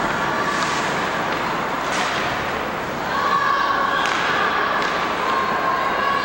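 Ice hockey play in an arena: steady rink and crowd noise, broken by several sharp knocks of sticks, puck and boards.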